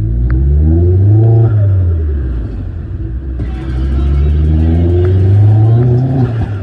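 Turbocharged four-cylinder engine of a Vauxhall Astra H VXR revved twice, each rev climbing, held briefly and dropping back as the throttle is released, when the turbo flutters.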